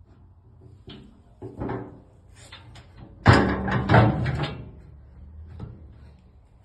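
Steel door of a small vertical baler being worked: a few knocks, then two loud bangs about a second apart, over a low steady hum.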